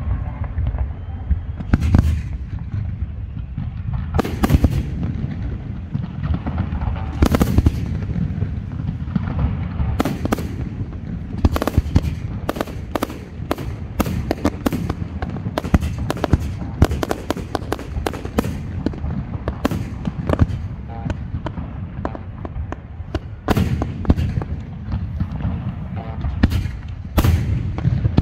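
Aerial firework shells bursting in a professional display: sharp bangs over a steady low rumble, a few spaced out at first, then a dense run of rapid bangs in the middle, then spaced out again.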